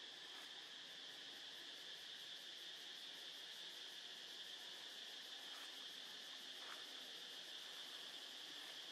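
Faint, steady, high-pitched insect chorus, an even drone that holds throughout.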